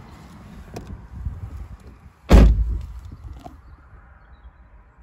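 Mazda MX-5's car door pulled shut with one loud thud about two seconds in, after some shuffling and rustling as someone settles into the seat; the outside background is quieter once it is closed.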